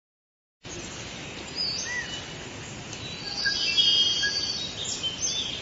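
Forest bird ambience: several birds calling and chirping over a steady hiss, starting about half a second in, with a louder run of high trilling chirps around the middle.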